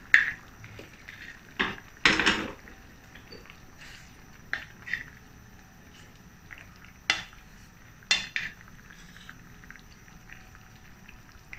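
Wooden spatula stirring through a stainless steel pan of braising tofu and gravy, with a handful of short knocks and scrapes against the pan, the loudest about two seconds in.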